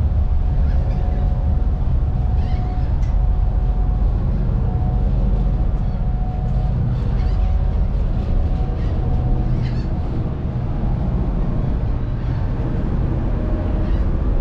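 Steady low rumble of a car ferry's engines under way, with a thin held tone coming and going above it and several short high cries scattered through.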